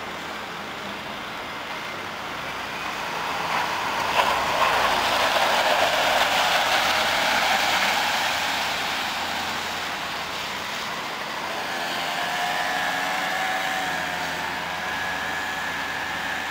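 A Hino bus drives past close by, its engine and tyre noise swelling to a peak about five seconds in and then fading. From about the middle, further traffic comes closer with a steady pitched engine note.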